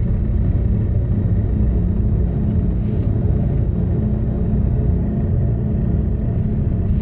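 Ambient drone music: a dense, steady low rumble with a few faint high tones held above it.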